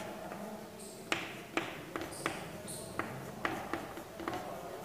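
Chalk writing on a chalkboard: a series of sharp taps, about one or two a second, as the chalk strikes the board, with a few brief high scratches between them.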